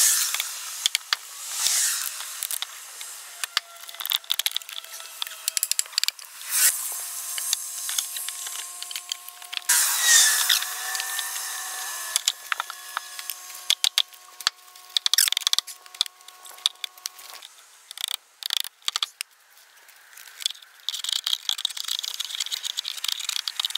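Drawknife shaving wood held in a shaving horse: several scraping strokes a few seconds apart, mixed with scattered clicks and knocks of wood.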